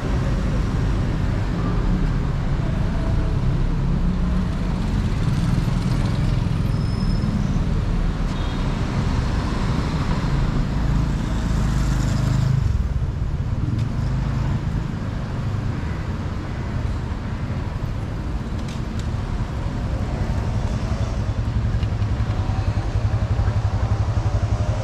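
City road traffic: a steady rumble of passing vehicles. Near the end an engine runs steadily close by.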